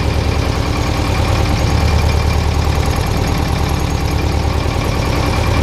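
Volvo Penta MD2B two-cylinder marine diesel running steadily, a fast, even low chugging.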